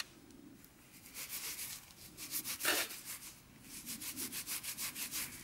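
Gloved fingers rubbing soil off a freshly dug East German one-mark coin: runs of quick scratchy strokes, about five a second, with one longer, louder stroke near the middle.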